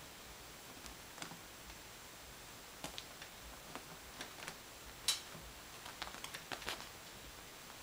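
Kittens' paws and claws scrabbling and catching on a fabric office-chair seat as they play: scattered faint ticks and soft pats at irregular intervals, the sharpest a little after five seconds in.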